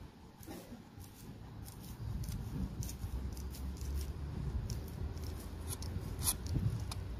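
Hands rubbing through a Persian kitten's long fur, with scattered light clicks and one sharper click about six seconds in. A low steady rumble comes in about two seconds in.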